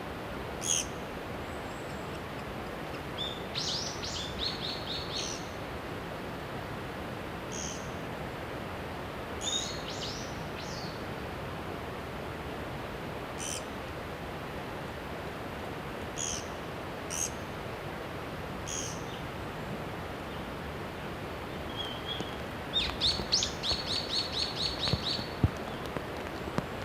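Japanese pygmy woodpecker calls: short, high call notes scattered through, with a quick run of repeated notes about four seconds in and a longer one near the end, over a steady background hiss.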